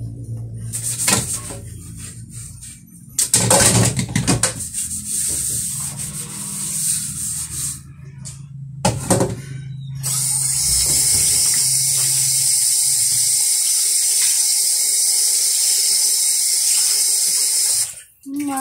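Washing up at a stainless-steel sink: for about the first ten seconds a sponge scrubs a metal pan in irregular rubbing, scraping strokes. Then the tap runs a steady stream of water into the pan for about eight seconds and shuts off near the end.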